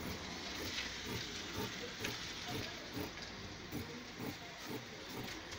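Tailor's scissors cutting through trouser cloth in short snips, about two a second, over a steady hiss.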